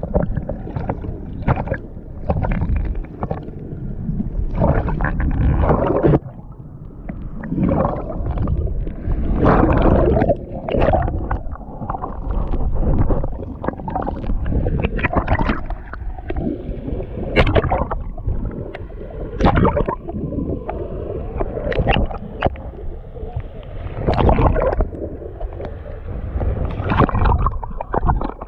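River water gurgling and sloshing around a GoPro camera held under water, heard muffled through the camera's housing, in irregular surges with a few sharp knocks.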